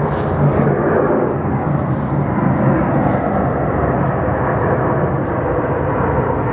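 Steady, loud rumble of engines, with no single event standing out.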